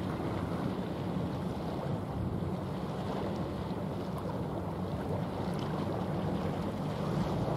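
Wind on the microphone making a steady low rush, with the wash of choppy sea water.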